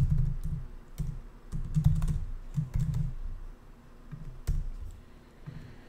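Typing on a laptop keyboard: quick runs of keystrokes, with a lull a little past the middle.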